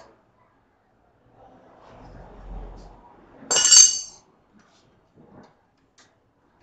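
A single sharp metal clink with a brief ring, about three and a half seconds in: a tool or metal part striking the welding machine's sheet-steel casing. Faint handling noise comes before it and a few small ticks after.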